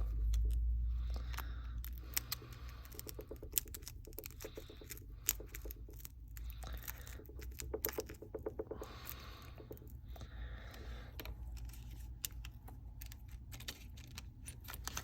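Irregular small clicks, ticks and scrapes of a pry tool working under the back glass of a Samsung Galaxy S8 Plus, prising it off its adhesive, over a low steady hum.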